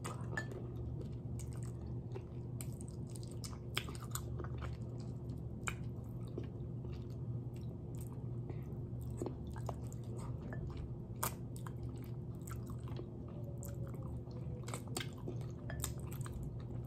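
Close-up mouth sounds of a person chewing and biting on adobo-braised chicken feet, with irregular wet clicks and smacks. A steady low hum runs underneath.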